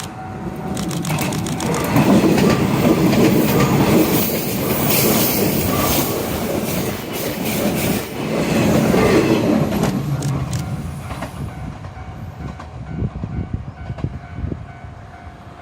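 JR 381 series electric express train passing over a level crossing: wheels clattering over the rail joints, loudest from about two to ten seconds in, then fading away. A level-crossing alarm rings steadily beneath it, heard most clearly before the train arrives and after it has gone.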